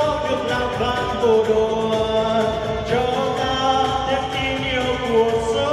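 A man singing a Vietnamese song through a microphone over loud backing music, holding long notes that slide between pitches.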